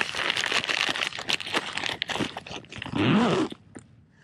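Plastic soft-bait packet crinkling and crackling as a hand rummages in it and pulls out a ribbed soft plastic worm. The crinkling stops between two and three seconds in.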